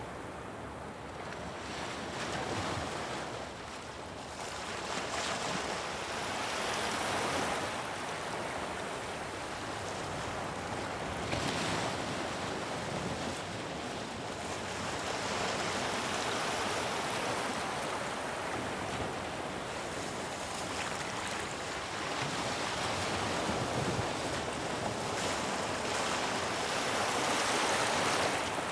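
Rushing noise that swells and ebbs every few seconds, like surf washing in and out.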